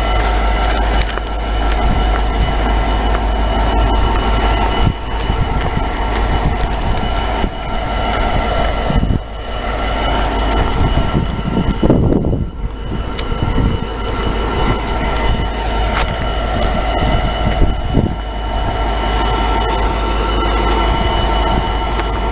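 A train at a station platform, running loudly with a constant low rumble and several steady high tones held throughout.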